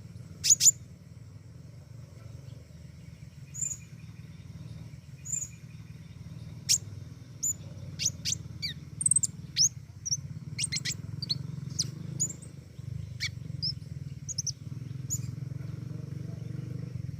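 Pentis raja songbird calling: a scattered run of sharp, high, very short chirps, many quickly falling in pitch, in the full-voiced 'gacor' singing that keepers prize. A steady low hum runs underneath.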